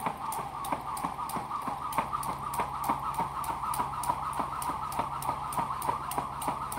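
Jump rope slapping the ground in a steady rhythm, about three strikes a second, over a steady hiss.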